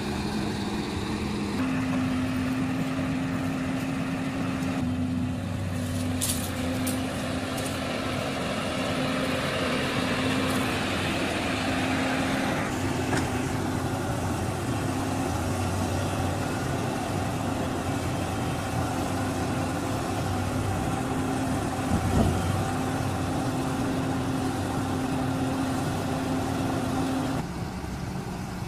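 Caterpillar 320D crawler excavator's diesel engine running steadily, with a few sharp clicks about six seconds in.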